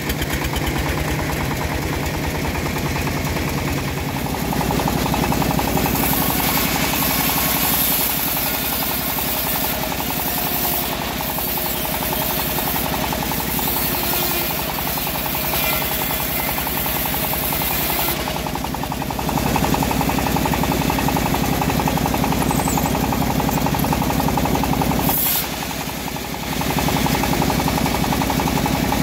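A homemade bandsaw mill running and sawing lengthwise through a teak log, with a steady, rapid knocking beat from its drive and the band blade's cutting noise over it. The level dips briefly near the end.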